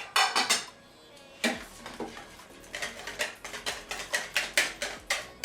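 A utensil beating eggs and corn flour into a batter in a bowl, knocking against the bowl about four times a second. A few strikes come right at the start, then a short pause before the steady beating.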